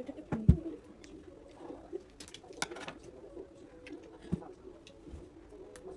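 Scattered light knocks and clicks of things being handled on a kitchen counter, the loudest about half a second in, over a faint steady hum.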